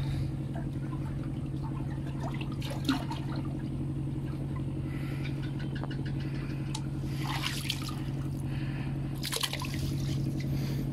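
Water splashing and trickling around a man moving in deep water, with a few louder splashes about seven and nine seconds in, over a steady low motor hum.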